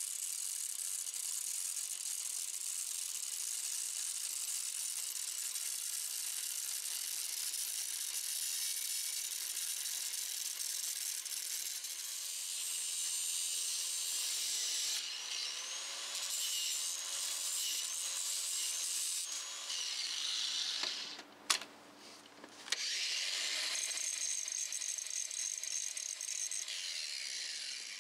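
Angle grinder with a cut-off wheel cutting through the steel bolts of a wheel hub assembly, shortening bolts that stick out about a quarter inch too far: a steady, high grinding hiss. About three-quarters of the way through it stops for a second or two with a click, then runs again.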